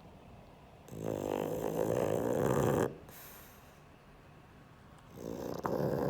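Pug, a flat-faced breed, snoring in its sleep: two long snores, the first starting about a second in and the second near the end, with quiet in-breaths between.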